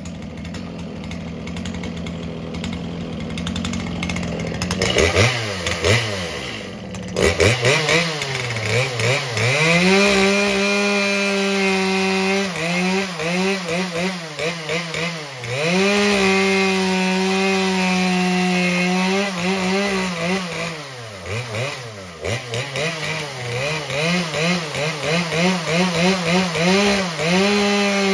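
Two-stroke chainsaw, its carburettor just set to about 12,300 rpm top speed, running hard and cutting wood. From about five seconds in, its pitch sags and climbs back again and again, then holds high for a few seconds at a time.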